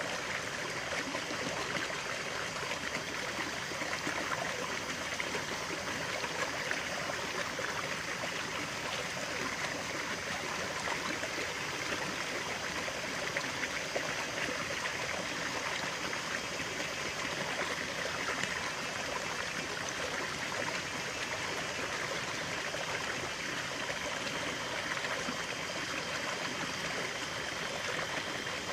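Stream of water running steadily over rocks, a continuous splashing and trickling with no breaks.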